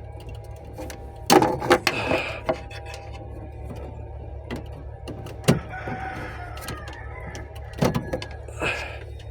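Sharp clicks and knocks of parts being handled during electrical troubleshooting on a machine that will not start, over a steady low hum. A cluster of knocks comes about a second in, then single knocks near the middle and near the end.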